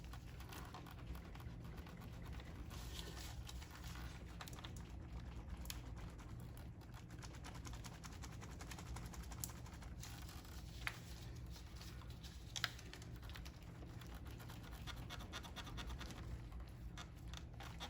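Faint scraping and rubbing with a few small sharp clicks, from fuel injectors being rocked and worked loose by hand from an LS2 V8's intake; the injectors are stuck and hard to pull.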